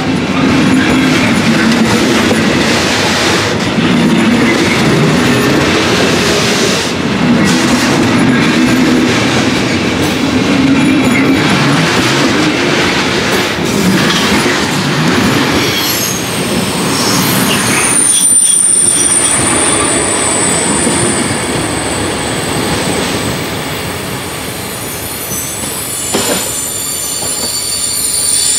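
Loaded timber wagons of a freight train rolling past close by: steel wheels rumbling and clacking over the rails. A high, steady wheel squeal sets in about halfway through, and the rolling noise fades near the end as the last wagons go by.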